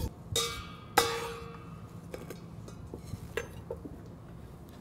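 Metal kitchenware clinking: two sharp, ringing clinks a little over half a second apart near the start, then a few lighter taps.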